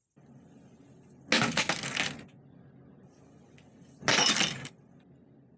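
Two short bursts of metallic clattering and clinking, about a second in and again near the end, as bicycle parts and tools are handled, over a steady low hum.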